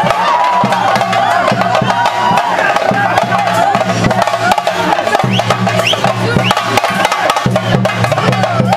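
Fast chenda drumming for a theyyam, a dense run of rapid strokes with a deep pulsing drone under it, and a crowd shouting over it.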